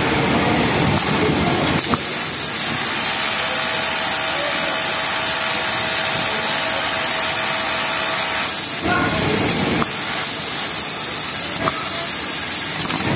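Yamato cylinder-bed flatlock industrial sewing machine running at speed as it stitches a T-shirt bottom hem: a steady mechanical whir that starts about two seconds in, breaks off briefly near nine seconds, and runs again until just before the end. Under it is a steady background hiss.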